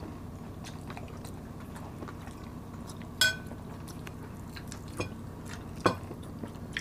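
A metal spoon clinking against ceramic plates and a glass serving dish a few times, the loudest clink about three seconds in with a brief ring, over a steady low hum.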